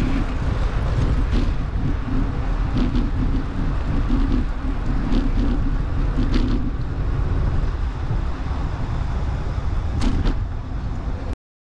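Wind rushing on a bicycle-mounted camera's microphone over the rumble of the bike rolling along a concrete bridge walkway, with a few light knocks as it goes. The sound cuts off suddenly near the end.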